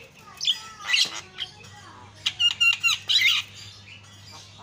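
Javan myna calling in a varied run of harsh squawks, chatter and short whistled notes, loudest in a burst about a second in and a dense cluster around two to three seconds in, then quieter.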